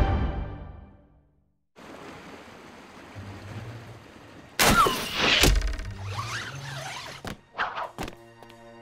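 Cartoon theme music fading out, a moment of silence, then a low city hum. About halfway through a loud whoosh and a heavy thunk, as of an arrow shot from a bow and striking home, followed near the end by a few shorter swishes.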